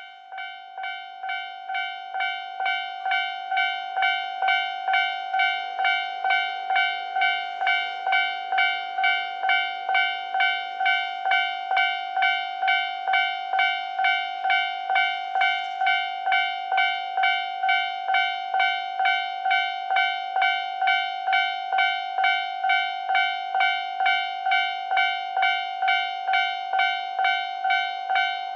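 Japanese railway level-crossing warning bell ringing in an even pulse of about two dings a second, warning that a train is approaching. It swells over the first few seconds, then holds steady.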